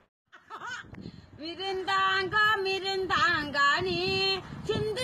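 A moment of silence, then a high-pitched voice singing a sing-song, chant-like line with long held notes.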